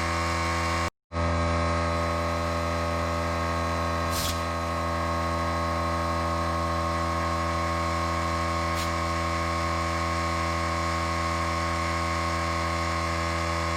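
Air compressor's motor and pump running steadily to refill its tank, a constant droning hum; it cuts out for a split second about a second in, then runs on unchanged.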